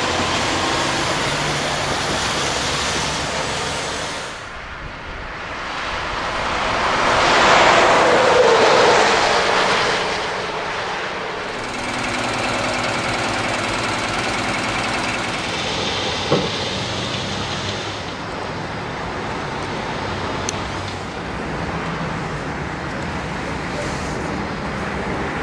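Trucks on the road: a semi-trailer truck comes up and passes, its engine and tyre noise swelling to a peak about eight seconds in and then fading. After that a truck engine runs more steadily, with a single sharp knock partway through.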